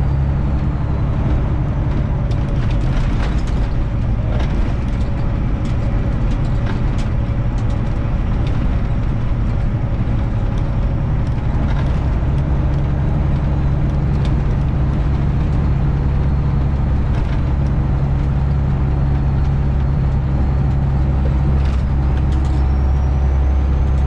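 Semi truck's Detroit Diesel 12.7 engine running at a steady cruise, heard from inside the cab as a constant low drone, with faint scattered rattles.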